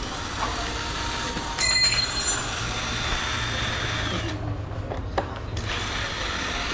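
Cordless drill running on an engine's cylinder head, with a short whine near the start. It stops a little after four seconds in and runs again about a second later.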